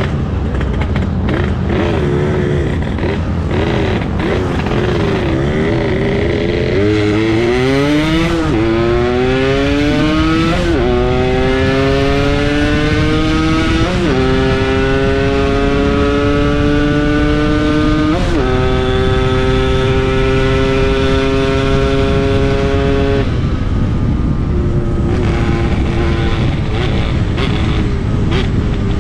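Yamaha RX-King 135cc two-stroke single-cylinder engine under way, at first running at low, wavering revs. It then accelerates hard from about seven seconds in, pitch climbing and dropping sharply at each of three gear changes. It holds high revs for a few seconds, and the throttle closes about three-quarters of the way through.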